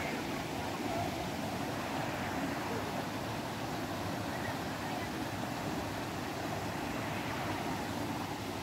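A small rocky stream running, a steady rush of water.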